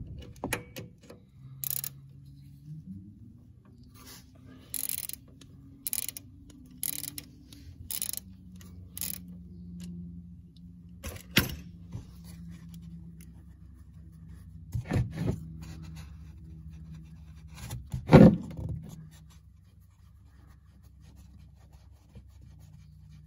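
Socket ratchet and metal tool clicks and clinks as a 14 mm drain bolt is worked loose on a lawn tractor transaxle, with a few louder knocks, the loudest about 18 seconds in, over a steady low hum.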